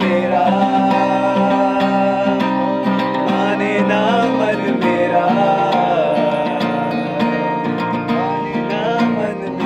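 Acoustic guitar strummed in a steady rhythm of chords, with a wavering melody line riding over them.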